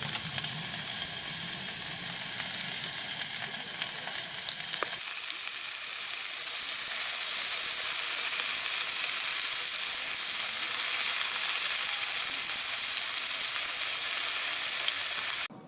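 Slices of meat sizzling and frying in a hot pan: a steady hiss that grows louder about five seconds in and stops abruptly just before the end.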